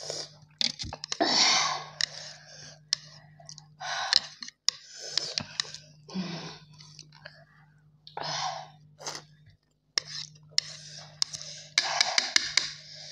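Repeated breathy gasps and hissing breaths through the mouth, with a few whispered words, as the burn of 3x-spicy ramen is taken in. Near the end a quick run of clicks and wet slurping sounds as noodles are sucked up.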